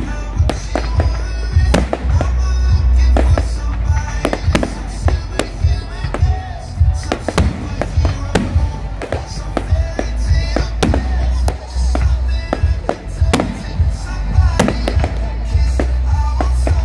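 Fireworks going off in rapid succession at a display, dozens of sharp bangs and cracks throughout. Music plays under them.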